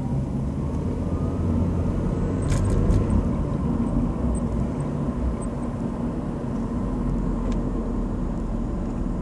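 2008 Honda Civic running or driving with a steady low rumble, and faint short high-pitched chirps now and then from about halfway through.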